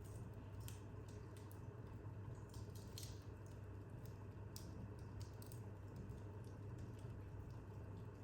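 Wood fire burning in a corner fireplace, crackling with irregular faint pops and snaps, one sharper snap about three seconds in, over a low steady hum.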